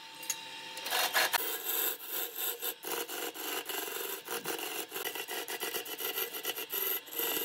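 Turning chisel cutting into a segmented glued-up wooden blank spinning on a wood lathe, a rough scraping noise with many rapid ticks as shavings fly off. The cutting starts about a second in, over the lathe's steady running.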